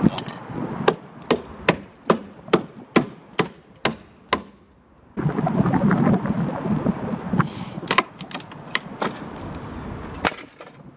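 A series of sharp cracks, roughly two a second, as a rusted steel wheel-arch cover panel riveted over the old arch of a Triumph Dolomite is pulled and torn away. After a short lull about halfway through comes a steady rush of noise with a few fainter cracks.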